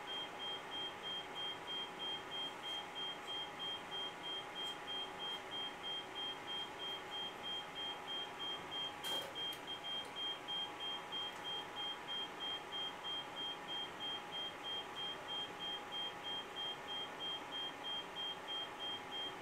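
Oscilloscope beeping: a short high beep repeated evenly, about two and a half times a second, a quirk of the instrument. Faint steady hum tones lie underneath, with a single click about nine seconds in.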